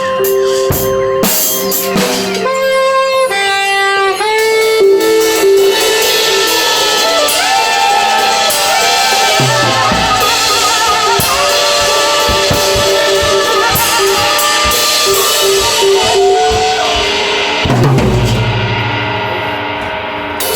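Live improvised band playing, with guitar and drum kit under long held, wavering notes; the sound thins out in the last couple of seconds.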